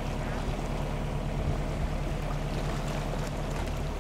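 A small boat's engine running steadily as it motors along a river, with water rushing past the hull.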